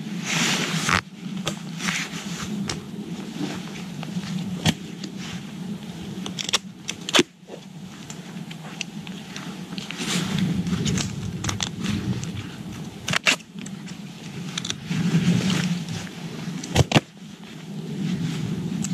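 Camouflage duct tape being pulled off the roll and wrapped around a backpack's nylon hip-belt strap: irregular ripping and crinkling bursts with a few sharp clicks, over a steady low background rush.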